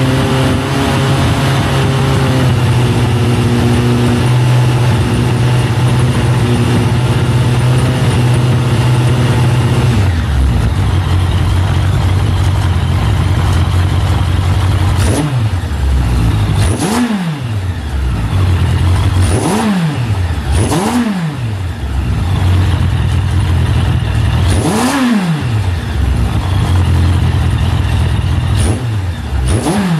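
Suzuki Bandit 1200S air/oil-cooled inline-four idling steadily, then revved with five or six sharp throttle blips in the second half, each rising and falling back to idle within about a second.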